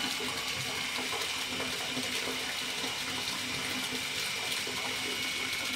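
Water running steadily, an even trickling pour.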